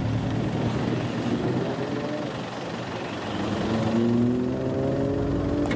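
Engine and exhaust of a lowered sedan pulling away, its note rising steadily from about halfway in.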